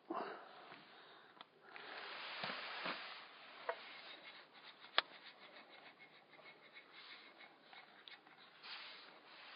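Faint rustling and scraping with scattered small clicks, and one sharp click about five seconds in.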